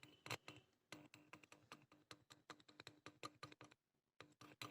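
Faint irregular clicking and crackle, several clicks a second, each with a brief low buzz: tweezers touching the pins of a TDA2030 audio amplifier IC on a powered home-theatre board, each touch injecting hum into the speaker to test whether the IC amplifies.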